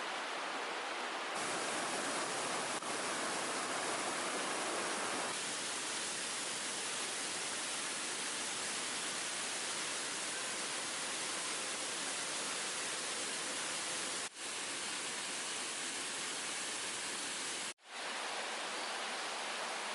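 Steady rush of water from a creek's small waterfalls. The sound changes slightly at a few points and drops out briefly twice in the second half.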